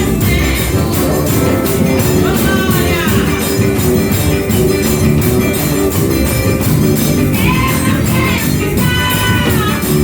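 Live gospel music with a steady percussion beat, and a singing voice coming in about two seconds in and again in the second half.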